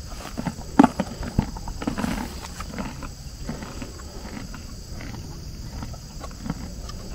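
Donkeys chewing treats close up, with irregular sharp crunches, the loudest about a second in.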